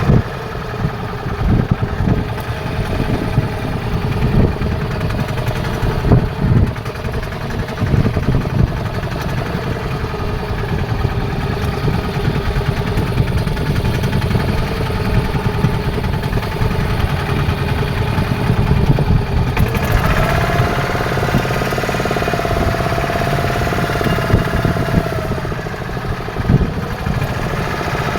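Fishing boat's engine running steadily, with occasional knocks, and a higher tone joining for a few seconds near the end.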